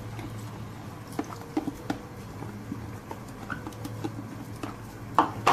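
Wooden slotted spatula spreading soaked rice in a pot of boiling water: scattered light taps and scrapes over a steady low hum, with two louder knocks near the end.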